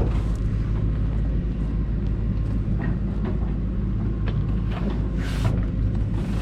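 Caterpillar 304 mini excavator's diesel engine running steadily, with a few short clicks and knocks over it.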